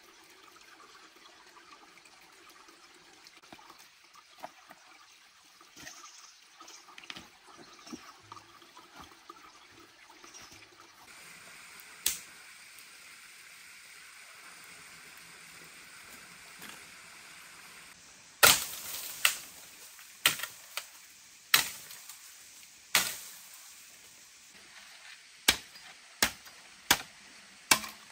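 A machete chopping into a green bamboo stalk: about nine sharp strikes, roughly one a second, through the second half. Before them, a stream trickles softly under small clicks from handling bamboo strips.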